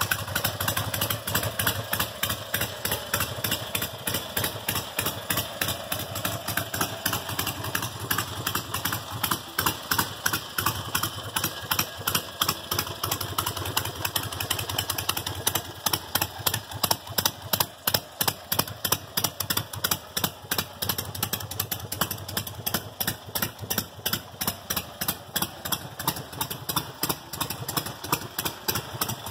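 1976 Harley-Davidson XLCH Sportster's 1000 cc Ironhead V-twin idling, a steady run of uneven exhaust pulses.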